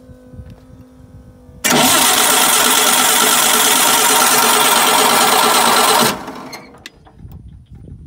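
A Wood-Mizer sawmill's gasoline engine cranked on its electric starter for about four and a half seconds, starting and stopping abruptly without the engine catching: it fails to start.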